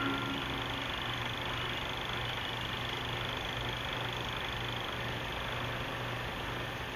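Steady hiss and low hum from a Bell & Howell 16 mm projector's optical soundtrack running through the silent end of the film, after a last tone fades out within the first second.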